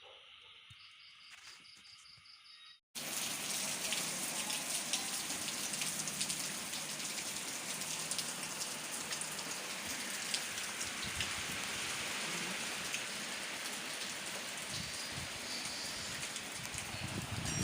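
Faint night insects chirping in a steady pulsing trill. After about three seconds a sudden cut brings in heavy rain falling steadily, a dense even hiss with many pattering drops.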